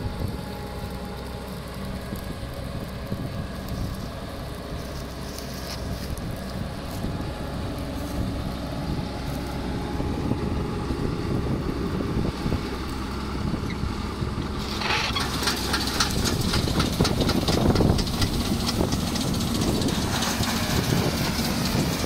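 Old John Deere combine harvester's engine running steadily. About two-thirds of the way through, a rattling clatter and a hiss join in as the unloading auger starts and grain begins to run out of the spout.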